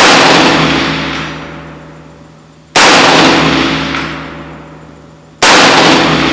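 Three rifle shots from a Black Rain AR-15, fired about two and a half seconds apart. The first comes right at the start, and each shot is followed by a long echo that dies away over about two seconds.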